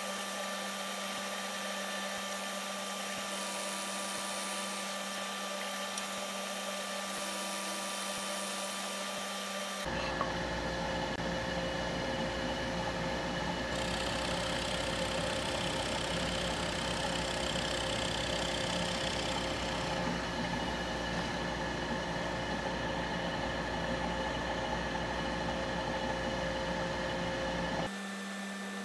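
Drill press running as a Forstner bit bores wheel-well holes in hardwood, with a vacuum dust-collection hose sucking at the bit; a steady motor hum and whir. About ten seconds in it turns louder and deeper, then drops back near the end.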